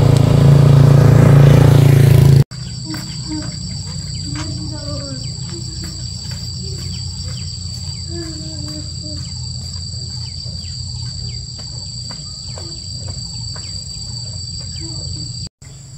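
A loud vehicle engine running steadily, cut off abruptly a couple of seconds in. After it, insects chirring in a steady high-pitched drone, with faint distant voices underneath.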